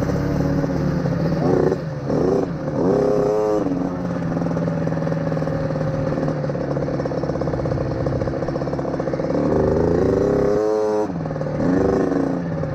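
A small four-stroke dirt bike engine, a 1987 Honda XR100, running under way with wind noise. The revs fall and rise again twice, about two seconds in and again near the end, as the throttle is eased and opened.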